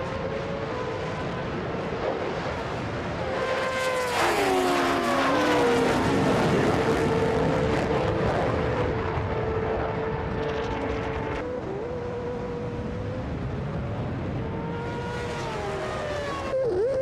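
Racing engines of supercars and a superbike accelerating hard in a runway drag race. Engine notes slide down in pitch around four seconds in and again near the end, as vehicles pass. The sound changes abruptly twice where the footage is cut.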